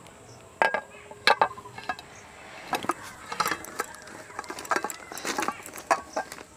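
A metal pressure-cooker pot and a plate clinking and knocking together as the pot is turned upside down onto the plate to turn out a baked cake. A scatter of sharp clinks and taps, several in quick succession.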